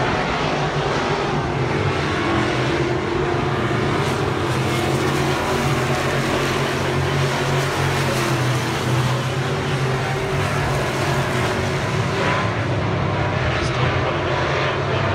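Engines of dirt-track modified race cars running as the cars circle the track, a steady, unbroken engine sound.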